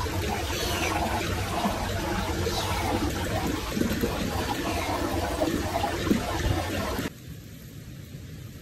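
Stream water running steadily over rocks, a continuous rushing wash; about seven seconds in it cuts off suddenly to a much quieter, softer hiss.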